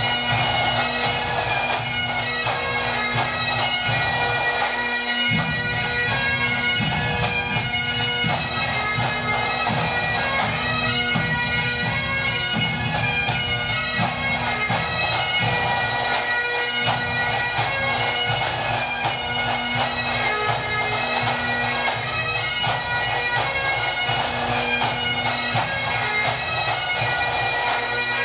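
Pipe band playing a 6/8 march: Highland bagpipes with their steady drones under the chanter melody, and drums beating along.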